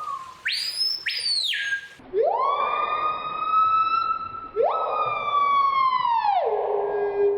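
Bird mimicking a siren: a short high whistle that rises and falls twice, then two long wailing tones that each climb, hold, and drop, the second sliding down near the end.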